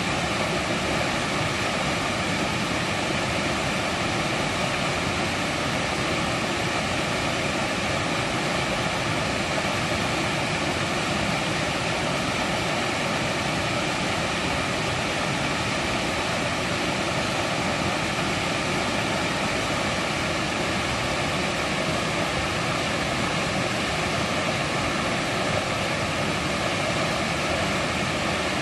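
Mountain valley stream flowing, a steady, unbroken rush of water.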